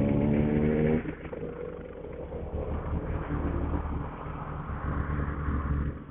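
Motorcycle engine running under throttle at steady revs, then the throttle closes about a second in and it drops to a low rumble under road and wind noise.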